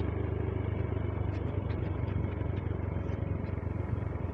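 A vehicle driving steadily over an unpaved sand-and-gravel road: a constant low engine hum under the hiss of the tyres on the loose surface.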